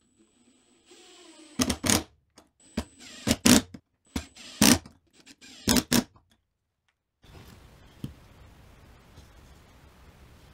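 A power driver running pocket-hole screws into plywood: the motor spins up with a faint whine, then about five short loud bursts over some four seconds as screws are driven in and seat. After that only low room noise with a light knock about eight seconds in.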